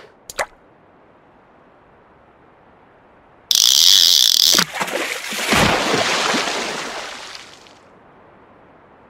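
Cartoon sound effects: two quick clicks, then about three and a half seconds in a fishing reel's drag buzzing loudly for about a second as a fish takes the line, straight into a big splash that fades away over the next few seconds.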